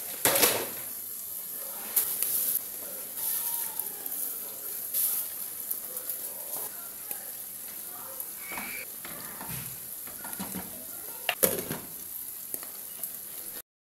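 Pot of water at a rolling boil: a steady bubbling hiss, with several sharp knocks of metal and a glass lid against the pot, the loudest about half a second in and near the end when the lid goes on. The sound cuts off suddenly just before the end.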